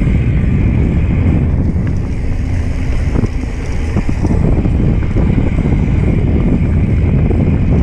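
Wind buffeting the camera microphone as a mountain bike descends a dirt trail at speed, with tyres rolling over the dirt and scattered rattles and knocks from the bike over bumps.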